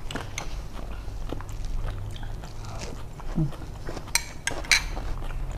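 Close-up eating sounds: chewing and sipping asinan, pickled vegetables in spicy broth, from a spoon. A few sharp slurps come about four to five seconds in.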